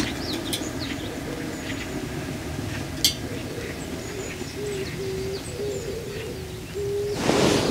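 Hot water poured in a thin stream from a gooseneck kettle onto coffee grounds in a Hario V60 pour-over dripper: a steady soft trickle that swells near the end. Birds chirp faintly in the background, and there is a single light knock about three seconds in.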